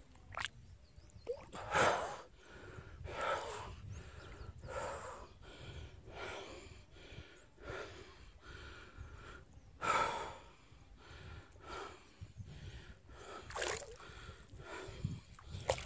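A person breathing hard and rhythmically, with a loud breath about every second and a half and a low rumble beneath.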